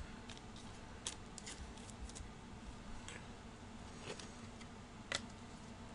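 Faint, scattered clicks and taps of trading cards being handled and set down on a table by a gloved hand, a few separate ticks with a slightly louder one near the end.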